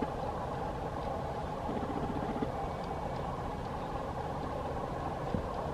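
Model train rolling along the layout track: a steady running noise of its wheels on the rails and the locomotive's motor, with a few light clicks.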